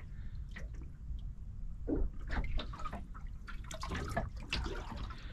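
Small waves lapping and slapping irregularly against a small boat's hull, over a steady low rumble of wind.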